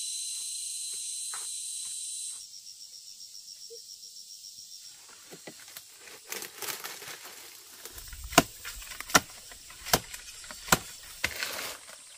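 Insects buzzing steadily at a high pitch, changing after about two seconds to a fast, even pulsing chirp. In the second half, rustling and a run of sharp woody knocks a little under a second apart.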